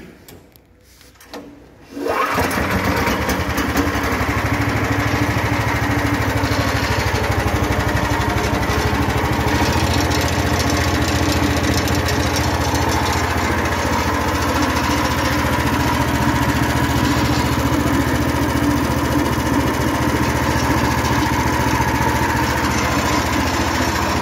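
18 HP Matsumoto MGX420 engine on a Tigon asphalt floor saw starting about two seconds in, then running steadily and loudly.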